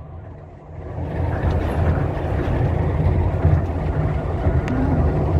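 Tokyo Monorail train running, heard from inside the car: a steady low rumble that grows louder about a second in.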